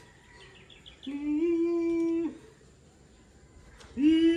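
A puppy whining: one long, steady whine of about a second, starting about a second in, and another starting near the end, with faint high squeaks before the first.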